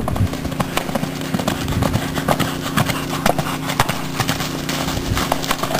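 Hoofbeats of a horse cantering loose over the dirt footing of an arena, a fast irregular run of dull thuds.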